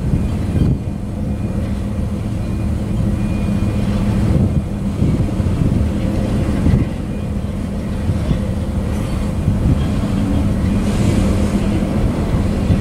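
Freight cars of a passing manifest train (tank cars and boxcars) rolling by close at hand: a loud, steady rumble of steel wheels on the rails, with occasional clacks.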